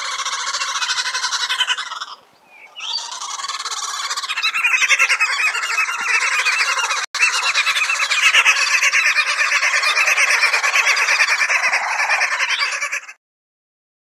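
Green wood hoopoe (red-billed wood hoopoe) calling: a loud, fast, harsh cackling chatter that keeps going, with a brief lull about two seconds in, and stops near the end.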